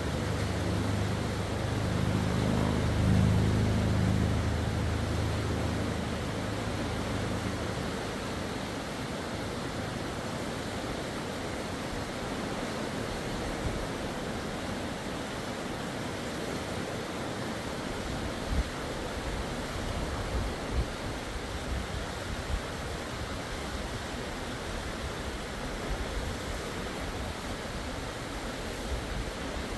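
Steady rushing of the Kern River. A low rumble swells and fades over the first several seconds, and a few short low thumps come later.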